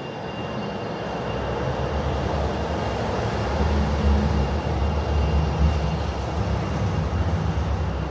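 A heavy vehicle passing along the street, its low rumble swelling over about four seconds and easing off near the end, over the steady hiss of light rain.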